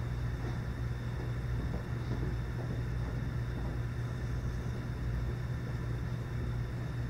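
Steady low hum of room tone, a constant drone with faint hiss above it and no speech.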